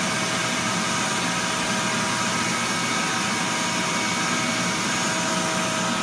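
RIDGID 12-gallon wet/dry shop vacuum running steadily: a constant rushing whine with several steady tones over it.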